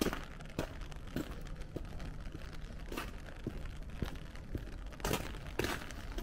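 Footsteps at a steady walking pace, about two steps a second, crunching over a steady low background noise.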